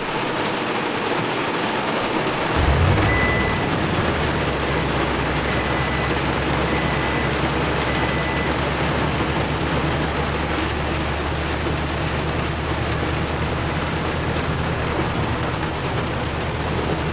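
Heavy rain falling on the roof, heard from inside the cab of a 2020 Toyota Tundra TRD Pro. About two and a half seconds in, the truck's 5.7-litre V8 starts with a brief rise in revs, then settles into a steady low idle. A short high beep sounds four times soon after the start.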